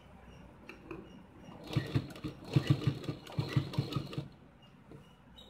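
Domestic sewing machine stitching piping onto a blouse neckline: a short run of quick, even needle strokes, about five a second, starting a couple of seconds in and stopping abruptly about a second before the end.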